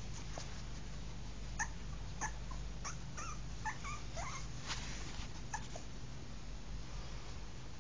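Puppy whimpering and yipping: a run of about ten short, high-pitched whines and yips, some sliding up or down in pitch, from about a second and a half in until near six seconds.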